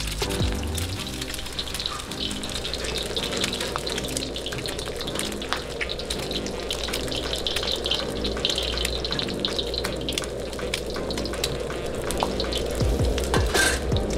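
Eggs frying in hot oil in a wok: a steady sizzle with dense crackling and popping as the whites bubble and puff. Background music plays underneath.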